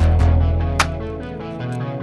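Background music with a deep bass note and a steady beat, plucked-guitar tones over it.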